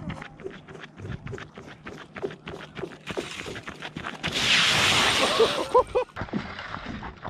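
Boots running across lake ice, about three footfalls a second, then a loud hissing rush about four seconds in as the angler drops to his knees at the tripped rod holder, with a few short pitched squeaks near the end.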